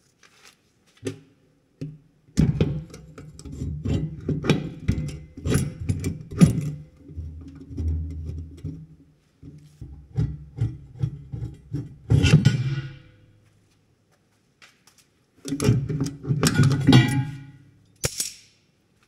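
Metal creaking, groaning and clunking under load as the engine is lowered onto new angle-iron motor mounts and its weight settles on them. There are two spells of low creaking full of sharp clicks and knocks, with a quiet pause between them.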